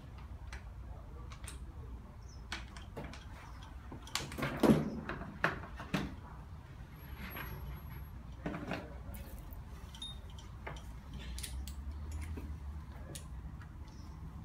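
Scattered metallic clicks and clanks of hand tools and parts being handled on a stripped-down engine, with a louder run of knocks about four to six seconds in, over a low steady hum.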